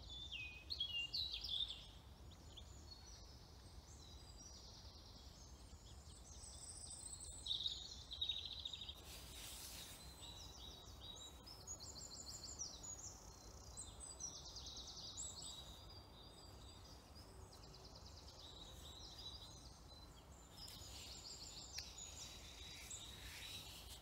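Faint woodland birdsong: several songbirds singing in short, quick, high-pitched phrases, one after another.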